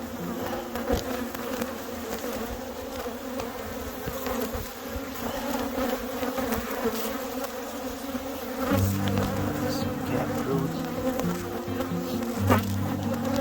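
Honey bees buzzing in a dense, steady hum around an open hive, with a few faint knocks. About nine seconds in, a lower, louder buzz joins.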